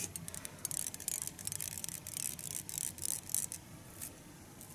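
Tying thread being wrapped at the hook eye while fingers hold back stiff elk hair: a quick run of soft scratchy ticks that dies away about three and a half seconds in.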